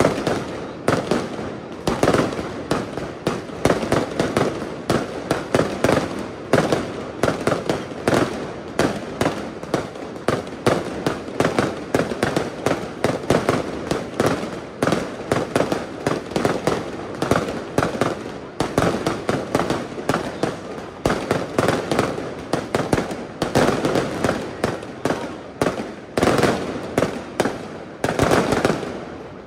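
Castillo aerial fireworks display: a dense, continuous barrage of bangs and crackles from rockets and shells bursting overhead, several a second.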